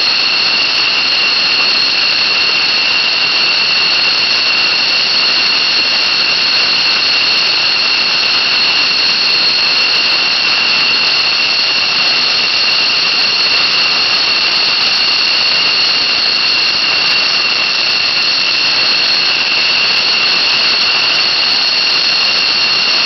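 F-16 Fighting Falcon jet engine running steadily on the ground: a loud, constant rush with a high-pitched whine held at an even pitch.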